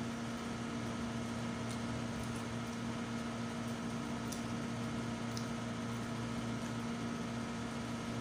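Steady hum of a running room appliance, even in level throughout, with a few faint ticks scattered through it.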